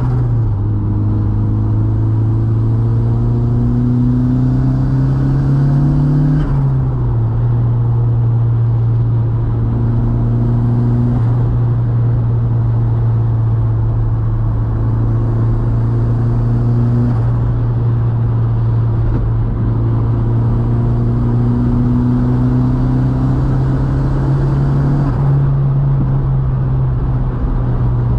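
VW Mk2's 1.8T turbocharged four-cylinder engine pulling steadily on a mountain road, its note climbing slowly and dropping sharply at gear changes about six seconds in and again near the end, over tyre and road noise.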